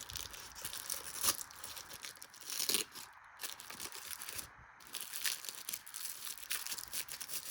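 Tape and packaging being picked at and torn by hand, with irregular crinkling and tearing.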